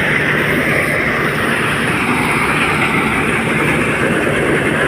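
Greengold combine harvester running steadily: a loud, even machine drone with a low hum underneath.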